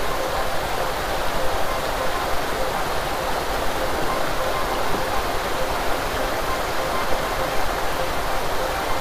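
Salmon spawning stream rushing steadily: an even, unbroken wash of running water.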